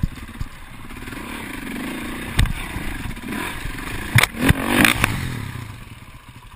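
KTM enduro motorcycle engine running and revving unevenly on a steep climb. Sharp knocks and clatter come about two and a half seconds in and again between four and five seconds in as the bike goes down on its side in the brush. After that the engine sound fades.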